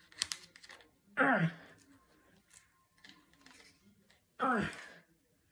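A person's voice making two short vocal sounds that fall steeply in pitch, one about a second in and one near the end, with a few sharp clicks and knocks just after the start.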